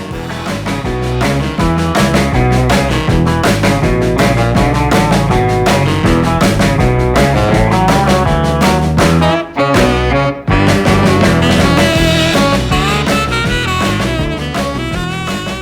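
Upbeat background music with a steady beat, dropping out briefly twice about nine and a half and ten and a half seconds in, then fading toward the end.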